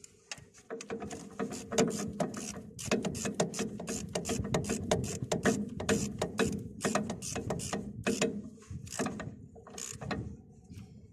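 Hand ratchet wrench clicking in quick, irregular strokes with metal tool clinks, as bolts on a bulldozer's oil cooler assembly are worked. The clicking is quiet for about the first second and eases off near the end.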